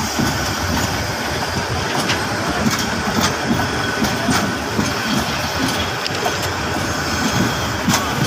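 Bangladesh Railway Intercity passenger coaches rolling past close by: a steady rush of wheel-on-rail noise with irregular sharp clicks and clatter from the wheels.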